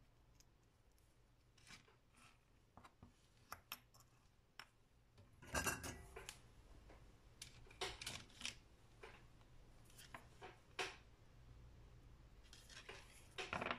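Faint, scattered light clicks and small clattering knocks of electronic components with wire leads being handled and set down on a wooden workbench, loudest in a short clatter about five and a half seconds in and again near the end.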